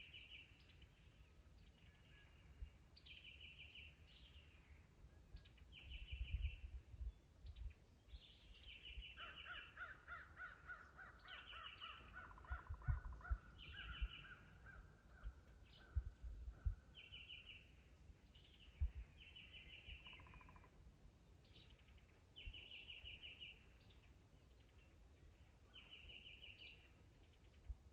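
Crows cawing over and over, short harsh calls every second or two, with a longer, lower call running for a few seconds in the middle. A few low thumps come through now and then.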